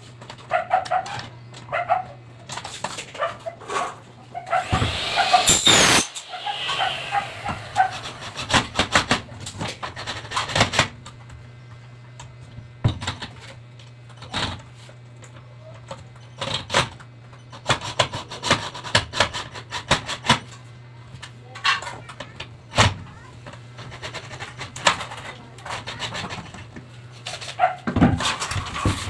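Aluminium window-frame profiles being handled and fitted together on a wooden workbench: scattered clicks, knocks and scrapes, with one louder rasping burst about five seconds in, over a steady low hum.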